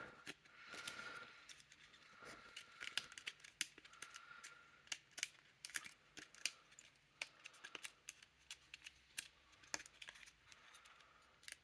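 Faint, irregular clicks and light taps of a wooden puzzle box's parts being handled and worked, as its mechanism is turned back towards the locked position.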